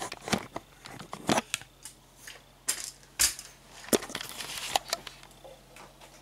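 Irregular sharp clicks and knocks of a plastic 1/14 scale RC wheel loader being handled, about six loud ones over five seconds, then quieter.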